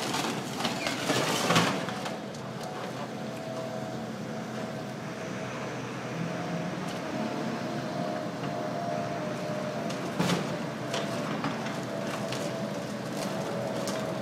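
High-reach demolition excavator running steadily with a faint whine, while its grab works rubble; sharp knocks and clatter in the first couple of seconds and again about ten seconds in.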